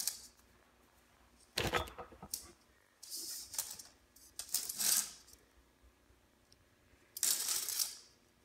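Roll of window screen mesh being unrolled and pushed across a screen frame: several short bursts of rustling and scraping, with a dull thump about a second and a half in.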